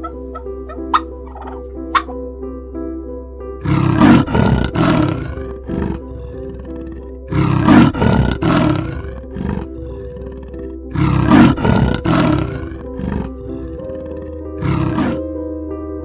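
An animal's loud calls come in three bouts of several pulses each, about every three and a half seconds, with a shorter bout near the end, over soft background music. A few short rising chirps come in the first two seconds.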